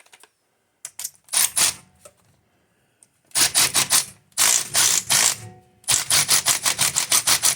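Milwaukee power tool running lug nuts onto the wheel studs, snugging them without full tightening, in several short bursts of rapid clicking at about ten clicks a second, the longest near the end.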